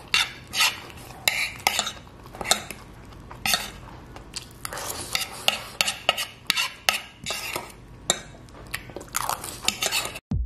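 Metal spoon and fork scraping and clinking against a plate in many quick, irregular strokes, gathering up the last scraps of noodles.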